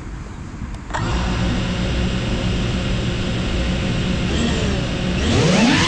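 FPV drone's brushless motors spinning up to a steady idle whine about a second in, then rising sharply in pitch near the end as the throttle is pushed up for takeoff.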